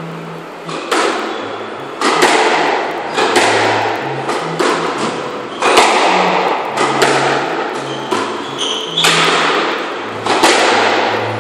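Squash rally: sharp hits of the ball off rackets and the court walls, roughly one a second, each ringing on in the echo of the enclosed court.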